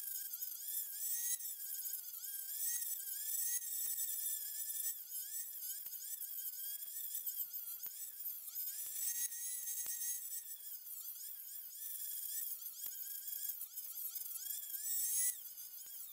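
High-speed rotary tool with a small abrasive cutoff wheel grinding through a steel hacksaw blade. The whine wavers up and down in pitch as the wheel bites and eases in the cut, and it drops in level near the end.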